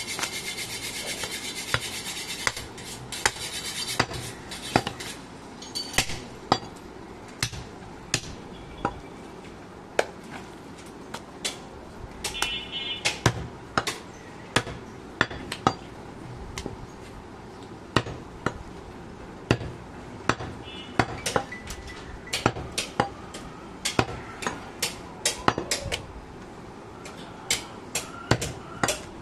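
Heavy butcher's cleaver chopping goat meat on a wooden tree-trunk block. The sharp, irregular chops come about one to two a second and crowd closer together near the end. A steady hiss runs under the first few seconds.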